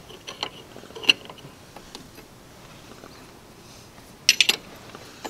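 Metal clicks and clinks of a ratcheting combination wrench working a steel hydraulic hose fitting on a tractor's top link: a few separate clicks in the first two seconds, then a quick run of clicks about four seconds in.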